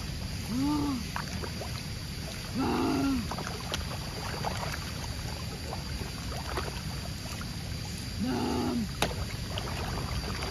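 Water churning and sloshing as a dense school of catfish thrash at the surface, feeding. Three short voice-like sounds come in now and then.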